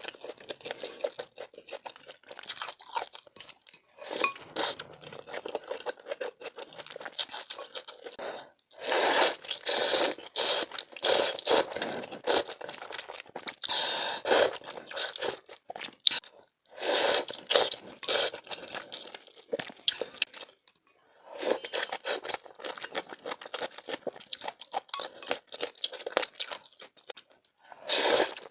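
A person chewing and crunching food, in runs of crunches a few seconds long broken by short pauses.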